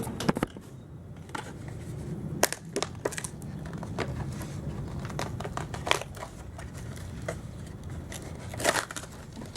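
A new paper air filter being pushed and worked into a lawn mower's plastic air filter housing: irregular clicks, scrapes and crinkles of paper pleats and plastic, with a cluster of louder clicks near the end as it goes in.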